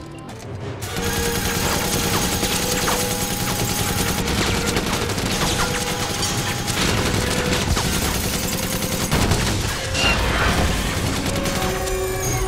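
Six-barrelled rotary minigun firing in long sustained bursts, starting about a second in: shots so rapid they run together into a continuous buzzing rattle.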